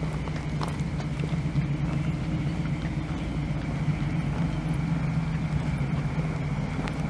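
Steady low hum of a running vehicle, with a few faint clicks.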